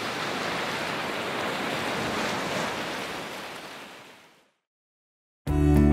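A rushing, surf-like sound effect of a wave washing in, swelling and then fading away about four and a half seconds in. After a brief silence, acoustic guitar music starts near the end.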